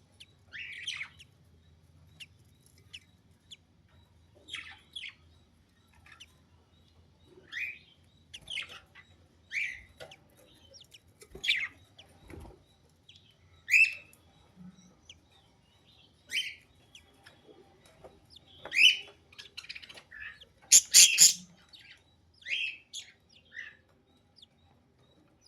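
Budgerigars chirping: short, separate calls every second or two, with a louder burst of calls near the end.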